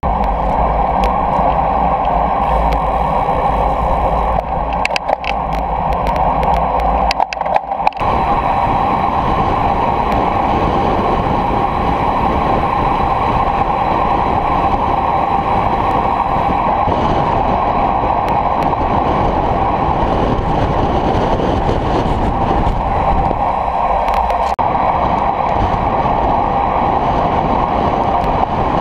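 Steady rushing wind and tyre noise picked up by an action camera mounted on a road bicycle moving at speed. A few light clicks or knocks come between about five and eight seconds in.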